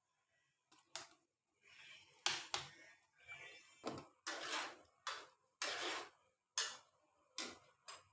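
Kitchen utensils knocking and scraping on cookware, a run of separate sharp strikes and short scrapes roughly once a second.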